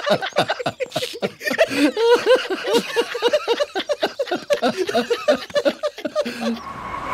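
Several men laughing heartily together in quick repeated bursts.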